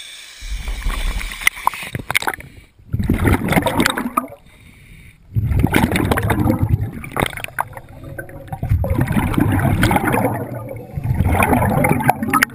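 Scuba regulator exhaust bubbles gurgling underwater, heard as about five separate rushes a second or two long with short gaps between: the diver breathing out.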